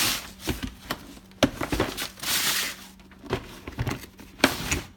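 Packaging crinkling in bursts as a new socket set is unwrapped, with several sharp clicks and knocks in between, the loudest near the end.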